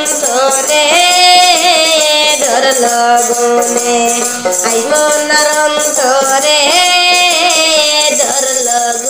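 Bengali song music: a wavering melodic line that swells twice, over steady shaker-type percussion.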